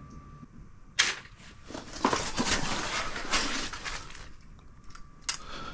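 A single sharp snap about a second in, then a couple of seconds of loud scraping, clattering noise.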